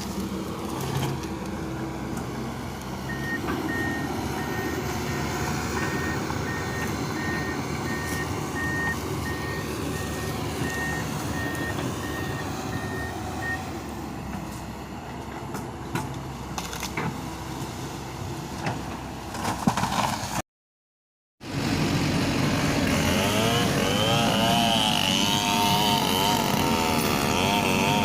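Excavator engine running with its travel alarm beeping steadily, about twice a second, for roughly ten seconds. After a brief dropout, louder machine noise with a wavering, warbling sound takes over.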